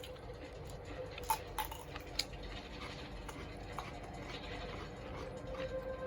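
Scattered light clicks and taps, the sharpest three in the first couple of seconds, over a steady faint hum.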